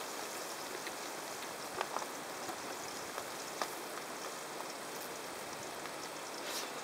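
Trout frying in a pan on a camp stove: a steady sizzle with a few small clicks.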